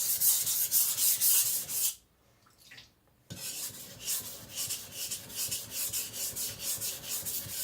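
Steel cleaver blade ground back and forth on a whetstone in fast, regular scraping strokes under heavy pressure, thinning the blade's bevel. The grinding stops for about a second and then resumes a little quieter.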